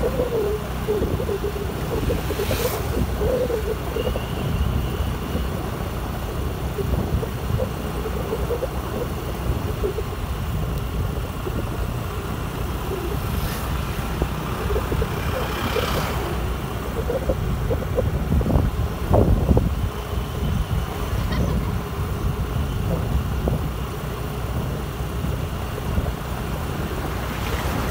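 Steady ride noise from a moving Honda Activa 5G scooter: road and engine noise under a low wind rumble on the microphone. There are a few light knocks, and a louder swell a little past the middle.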